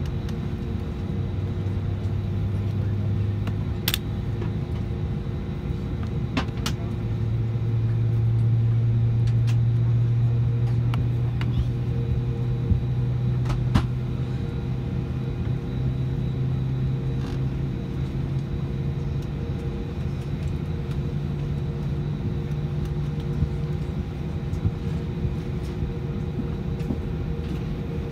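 Steady cabin hum of an Airbus A320 parked before departure, with a low drone that slowly rises in pitch from about a quarter of the way in, and a few sharp clicks.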